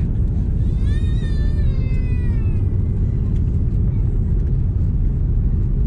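Steady low rumble inside the cabin of an Airbus A330-300 rolling on the ground just after landing, with the wing spoilers still raised. About a second in, a short high-pitched cry rises, wavers and falls over roughly two seconds.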